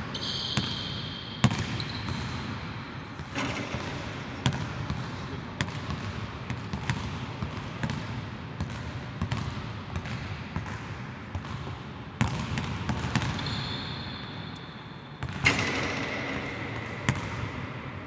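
A basketball being dribbled on a hardwood court in a large, empty arena hall: a run of sharp bounces at an uneven pace, with a few short high squeaks near the start and again in the last few seconds.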